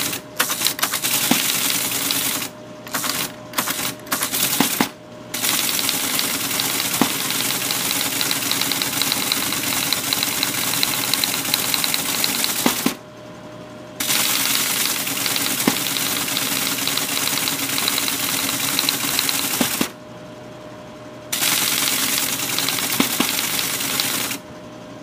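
Teletype Model 33 ASR printing at speed, a dense mechanical clatter in long runs broken by a few short pauses, typing out the assembler's output. Its motor keeps humming steadily through the pauses, and the printing stops just before the end.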